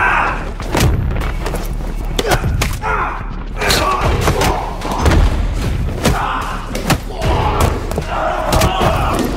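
Film fight sound effects: a fast series of blows, hammer strikes and heavy body thuds, with short grunts and cries between them.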